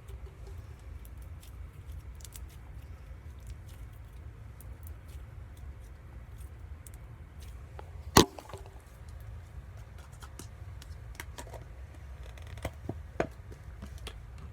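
Slime being handled by hand: scattered faint crackles and clicks over a steady low hum, with one sharp, loud pop about eight seconds in and two smaller pops near the end.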